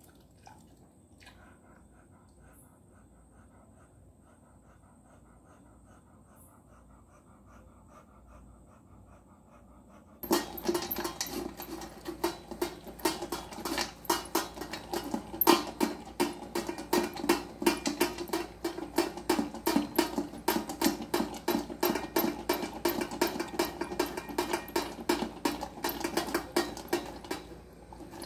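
Near quiet for about ten seconds, then a red-nose pit bull suddenly starts eating raw whole fish from a stainless steel bowl: rapid, loud crunching and wet chewing that goes on steadily.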